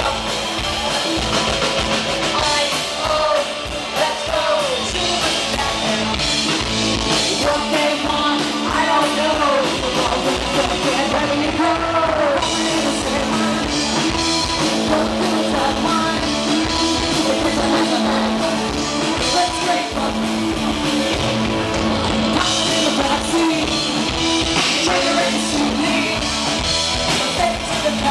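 Live rock band playing a fast punk rock song: electric guitars, bass guitar and drum kit, with a woman singing lead.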